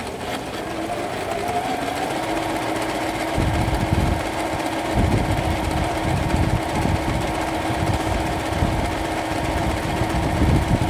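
Norio Yamazaki electronic sewing machine (made by Juki) running steadily as it sews a zigzag elastic stitch through cotton fabric. Its motor hum grows louder over the first couple of seconds, and a fast low chatter of the needle joins about three seconds in.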